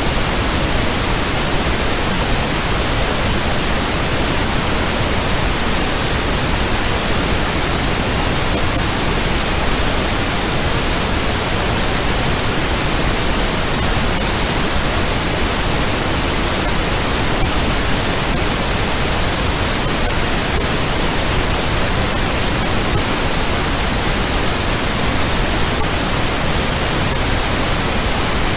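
Steady, unvarying hiss of generated noise like radio static, even from low rumble to high hiss at constant loudness.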